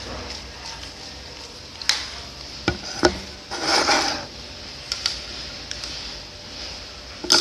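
Slime mixture being stirred in a container with a stirring utensil: soft scraping, a few sharp clicks of the stirrer against the container, and a louder half-second scrape about three and a half seconds in.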